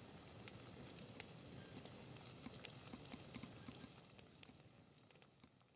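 Faint crackling of a wood campfire with scattered sharp pops, over the soft sizzle of lamb chops frying in a pan on the fire; it dies away near the end.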